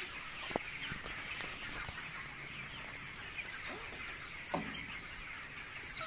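A large flock of broiler chickens in a poultry house keeps up a steady din of clucking and chatter. A few single louder calls stand out in the second half, the loudest about four and a half seconds in.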